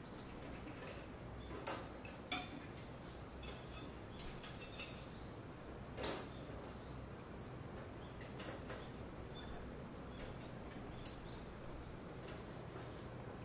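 Quiet outdoor ambience: a steady low hum and hiss, scattered with faint clicks and ticks. The sharpest clicks come about two seconds in and at six seconds. A short, high, falling chirp comes about seven seconds in.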